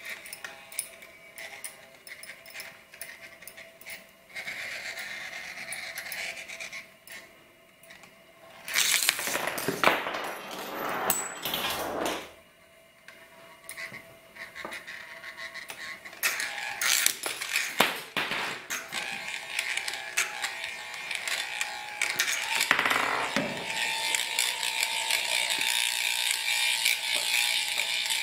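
Homemade metal spinning tops and their hand-built starter making mechanical clicking, scraping and rattling on a glass mirror. There is a louder scraping spell about a third of the way in, and a busy ratcheting rattle builds up over the last third.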